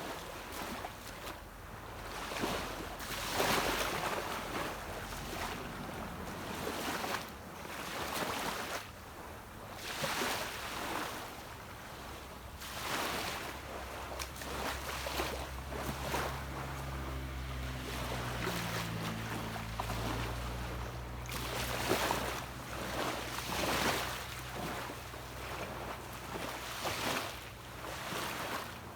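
Small sea waves washing onto a beach in repeated surges a few seconds apart, over the low steady hum of a distant motorboat engine whose pitch shifts around the middle.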